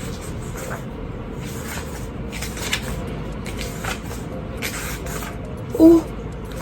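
Paper rustling as the pages of a planner are handled and turned: soft, irregular swishes. Near the end comes a brief, louder hum from a woman's voice.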